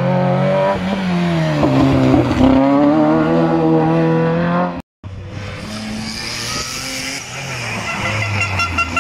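Rally car engines at high revs: one car's engine note drops and then steadies. After a cut, a second car's engine approaches with its revs climbing.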